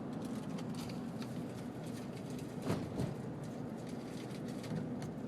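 Steady road and engine noise inside a moving car, with scattered light ticks and one sharper knock about halfway through.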